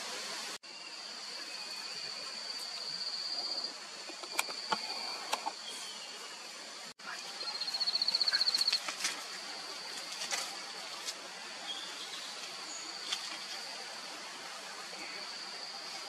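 Tropical forest ambience: a steady high insect drone that twice swells into a loud, rapid pulsing trill, over a constant hiss, with a few scattered short clicks.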